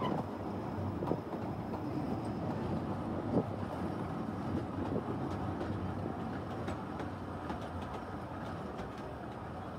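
Narrow-gauge passenger train rolling slowly past close by, a steady rumble of wheels on rails with a few knocks, the loudest about three and a half seconds in.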